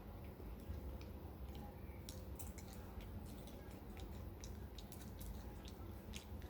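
Faint scattered clicks and smacks of a person chewing and eating a snack close to the microphone, over a low steady room rumble.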